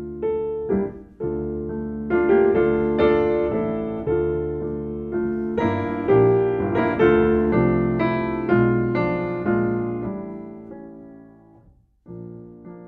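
Solo piano music: a gentle melody of struck notes and chords, each note dying away. It fades out about eleven seconds in, and a new phrase starts just before the end.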